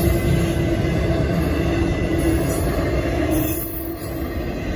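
CSX intermodal freight train's double-stack container cars rolling past, a steady rumble of steel wheels on rail.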